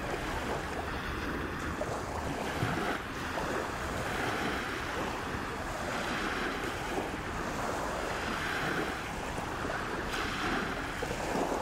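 Small sea waves sloshing and lapping, a steady wash that swells gently every few seconds, with wind buffeting the microphone.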